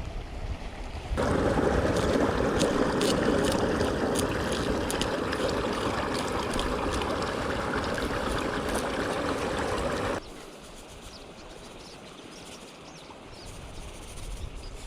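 Steady rush of running water, switching on about a second in and cutting off abruptly about ten seconds in.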